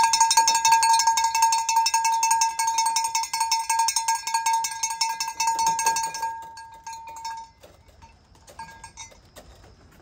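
A bell rung rapidly and continuously for about six seconds, then dying away, used to call returning racing pigeons in to the loft.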